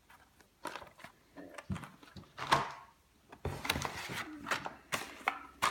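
Carded Hot Wheels cars being handled: irregular clicks, taps and rustles of cardboard backing cards and plastic blisters, with a sharper knock about two and a half seconds in.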